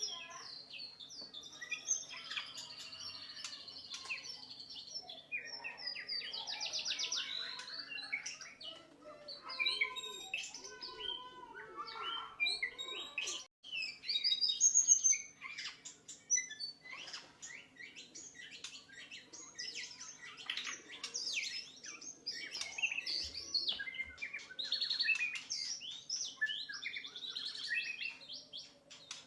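White-rumped shama (murai batu) singing a long, varied song of rapid whistles, trills and chirps, phrase after phrase with short gaps, over a faint steady hum.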